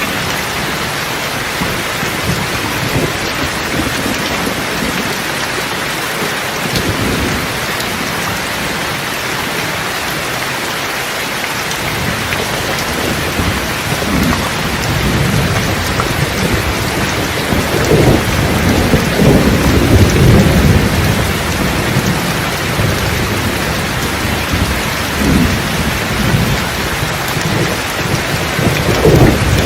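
Steady heavy rain with rolling thunder: a low rumble builds about halfway through, swells loudest a few seconds later, and rumbles again near the end.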